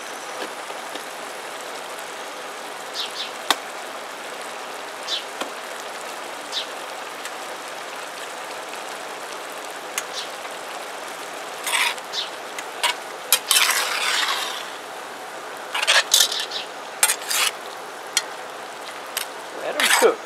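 A pot of crawfish tails and corn cooking on a portable burner with a steady hiss. About twelve seconds in, a metal slotted spoon starts stirring, scraping and clattering against the pot in repeated bursts as the crawfish are folded in.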